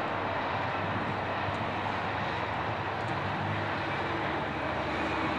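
Steady road and traffic noise heard from inside a slowly moving car, with a low engine hum underneath.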